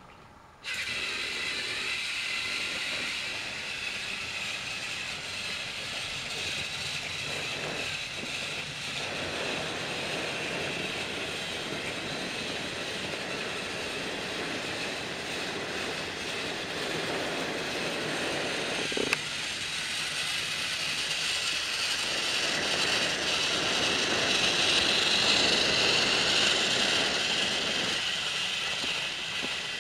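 Battery-powered Trackmaster motorized toy train switched on and running: a steady electric-motor whir with wheels clattering on plastic track, growing louder in the second half as the train comes closer. One sharp click about two-thirds of the way through.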